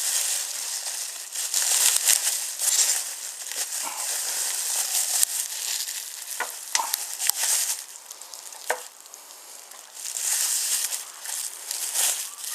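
Wrapping being pulled and torn off the box of a wooden toy train station: a crackling, crinkling rustle with a few sharp clicks, easing off for a couple of seconds about eight seconds in.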